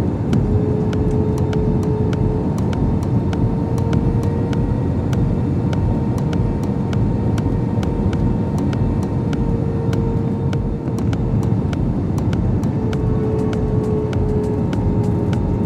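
Airbus A320 cabin noise in flight during the descent: a steady rush of engine and airflow noise with a constant whine running through it.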